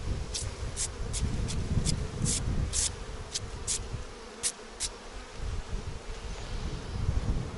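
Honeybees buzzing around an open hive that robber bees are attacking, a steady low hum, with a run of short, crisp high-pitched ticks over roughly the first five seconds.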